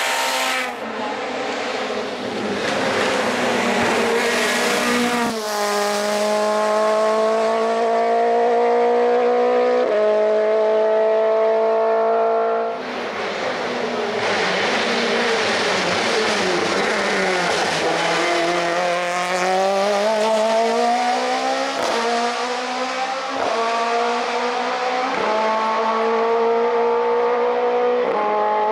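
Suzuki Swift GTi hill-climb race car's engine revving hard under acceleration, its pitch climbing and then dropping sharply at each upshift, several times over. In the middle it falls away for a few seconds before climbing again.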